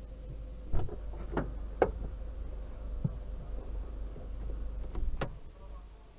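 A few sharp knocks and clunks inside a parked car, about six at uneven intervals, over a steady low hum that fades near the end.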